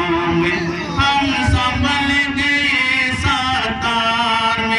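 A man singing a chant-like Rohingya song over musical accompaniment, with a few low beats under the voice.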